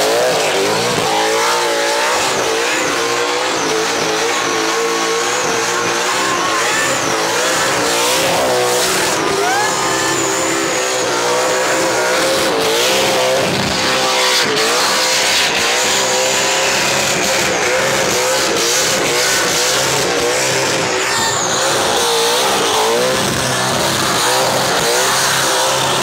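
Supercharged big-block V8 of a Holden VE Commodore doing a burnout, held high in the revs with the pitch wavering up and down, over the steady scream of rear tyres spinning against the road.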